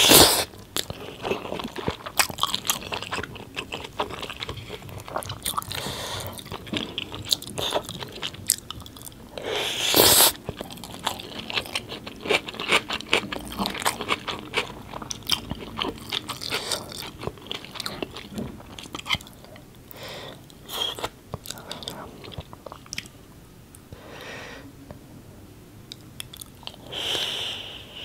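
Close-miked chewing of mouthfuls of spiced rice, full of fine wet mouth clicks and smacks. A few louder, noisy bursts break in near the start, about ten seconds in, and near the end.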